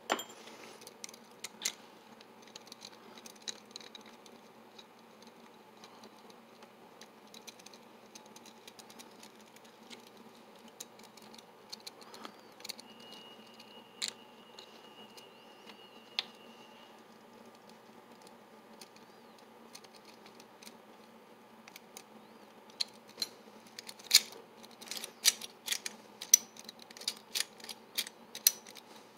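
Small metal parts of a PDQ GP Series lever lockset chassis clicking and rattling as they are handled and fitted back together by hand. The clicks are sparse at first and come thicker and louder near the end.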